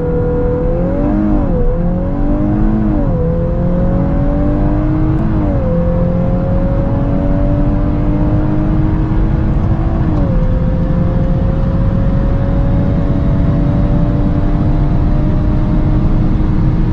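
Car engine accelerating hard through the gears: its pitch climbs, drops briefly at each of about four upshifts, and each gear is held longer than the last, the final one a slow steady climb at high speed.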